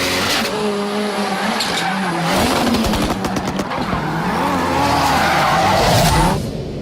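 Ford Fiesta rally car's engine revving up and down hard as its tyres skid. The noise drops off sharply near the end.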